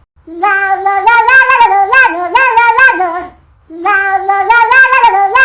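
Cat ringtone: a melody sung in quick meow-like notes, in two phrases of about three seconds with a short break between them.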